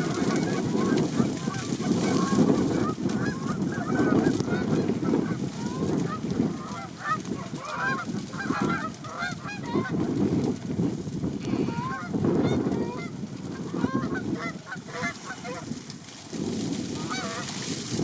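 A flock of geese calling, many short honks overlapping. Heavy gusty wind buffets the microphone and is the loudest sound, surging and easing every second or two.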